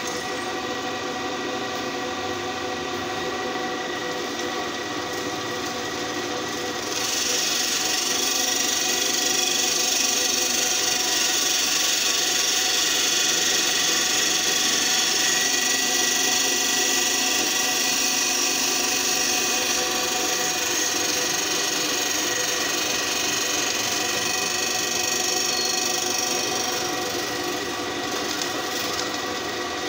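Drill press motor running steadily with a hum. From about seven seconds in until near the end, the twist drill bit cutting into a flat metal bar adds a louder, high grating hiss.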